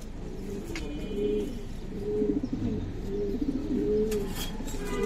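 Domestic pigeons cooing, several low coos one after another.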